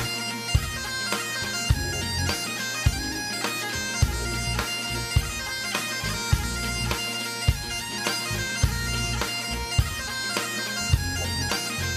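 Background music: held, droning wind-instrument notes over a steady beat of about two strikes a second.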